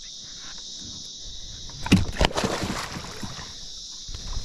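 A sudden splash of water about two seconds in, with a short wash of water after it, over a steady high drone of insects.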